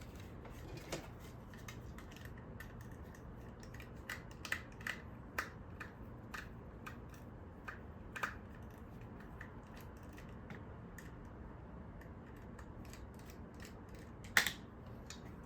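Scattered small clicks and taps of hand tools and a loose screw against the hard plastic of a Roomba's drive-wheel module as the screw is worked free, with one sharper click near the end.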